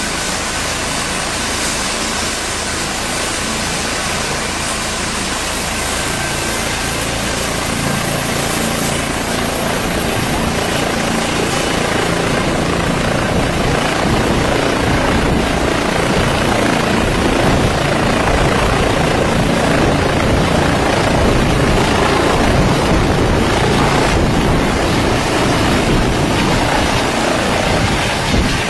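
Light twin-turbine rescue helicopter with a ducted tail rotor at close range, its turbines and rotor running up to take-off power. The sound grows louder over the first dozen seconds and then holds loud and steady with a fast low rotor beat as it lifts off and climbs.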